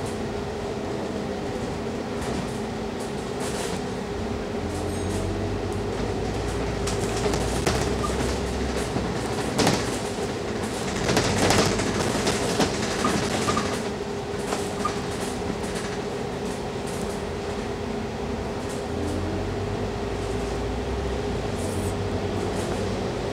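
Inside a Scania K310UD double-decker bus on the move: the engine and drivetrain run with a steady whine over a low rumble that swells twice as the bus pulls away harder. A cluster of knocks and rattles from the bus body comes around the middle.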